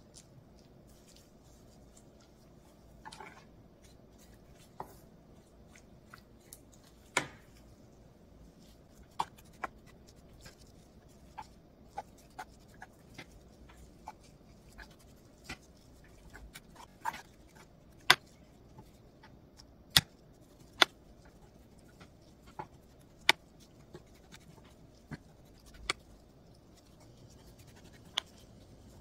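Kitchen handling noises: about twenty irregular sharp taps and clicks over faint hiss, louder and more frequent in the second half. They come from gloved hands and a wooden spoon working seasoning paste onto pickled perilla leaves in a tray.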